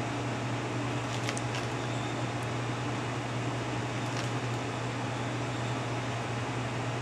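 Steady low machine hum over an even hiss, with a few faint light clicks as small metal parts of a toy train chassis are handled.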